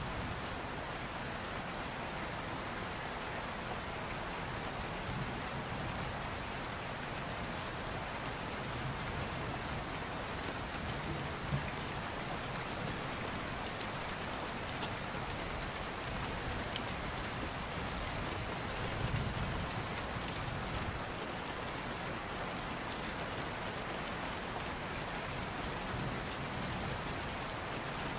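Steady rain: a continuous, even patter of falling rain, with a couple of sharp single ticks.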